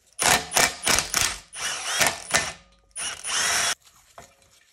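Cordless power driver spinning out the two T45 Torx bolts that hold the wastegate actuator on a BMW N20 turbocharger: a series of short bursts, then a steadier run of under a second that stops abruptly.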